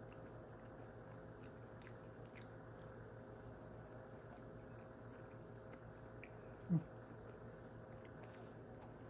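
Faint chewing of a bite of brownie with a crisp top, with scattered small clicks and crunches from the mouth. About two-thirds of the way in, a brief voice sound falling in pitch, like an 'mm', is the loudest moment.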